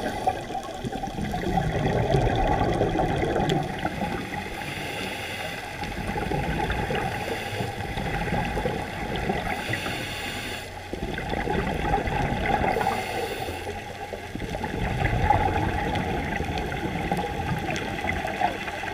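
A scuba diver breathing through a regulator underwater: a continuous gurgling of exhaled bubbles, with four short hissing inhalations a few seconds apart.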